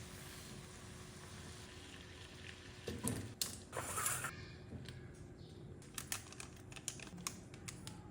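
Light kitchen handling sounds: faint knocks and clicks of utensils or food being worked, with a louder scraping burst about three to four seconds in and a quick run of sharp clicks near the end.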